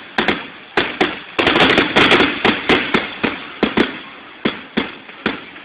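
Aerial fireworks shells bursting in a rapid run of sharp bangs. They come densest and loudest from about one and a half to two seconds in, then thin out to single, more widely spaced reports.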